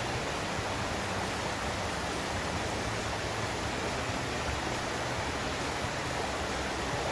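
Small waterfall and creek: water pouring over a rock ledge and rushing through the boulders below, a steady, even rush with no breaks.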